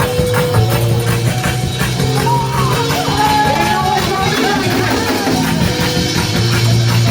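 A church band playing loud, driving praise music: steady bass notes that change every second or so over a beat of drum hits, with raised voices singing or shouting over it from about two and a half seconds in.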